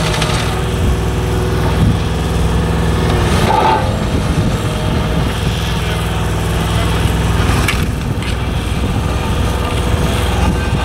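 Engines of a small double-drum asphalt roller and a dump truck running steadily as the roller drives over the fresh asphalt. The engine note shifts about two-thirds of the way in.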